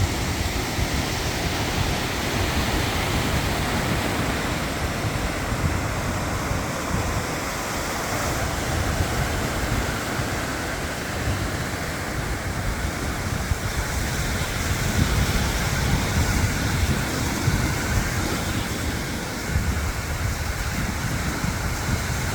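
Strong wind gusting over the microphone with a rumbling buffet, over the steady wash of sea surf.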